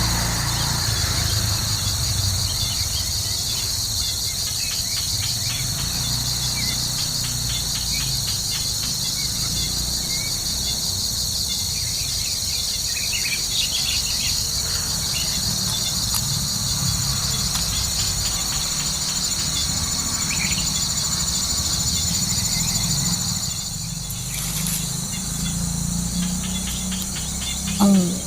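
A steady chorus of insects trilling at several high pitches at once, with fast pulsing and a low rumble underneath. There are a few faint short chirps in the middle, and a brief loud gliding call just before the end.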